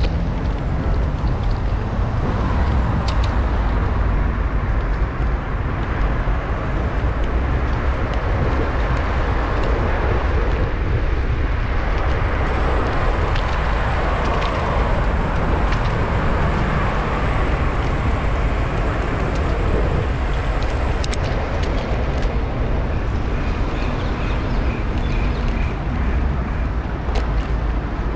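Steady wind rumble on a bicycle-mounted action camera's microphone while riding, mixed with road traffic noise.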